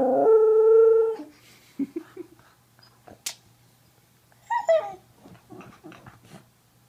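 Corgi vocalising in protest at being kissed: a loud, steady whine held for about a second at the start, then a few soft grumbles and a shorter whine that bends in pitch about halfway through.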